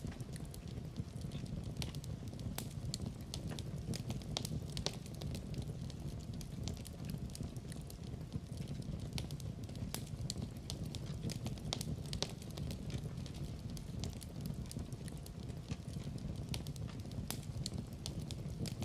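Wood fire in a fireplace burning, with many small irregular crackles and pops over a steady low rush of flame.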